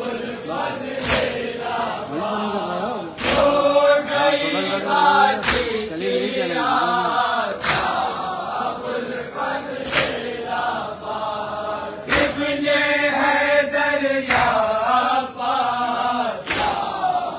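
A crowd of men chants a Shia nauha lament in unison. A loud stroke of matam, palms striking chests together, falls about every two seconds and keeps the rhythm.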